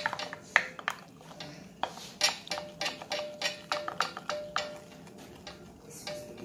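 A metal spoon clinking and scraping against a glass mixing bowl while stirring thick cream and condensed milk: quick, irregular clicks that stop about two-thirds of the way through. Quiet background music plays under it.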